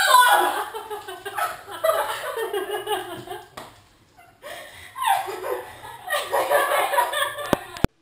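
A girl laughing hard, in two long bouts with a short lull about four seconds in. Two sharp clicks come near the end, and then the sound cuts off.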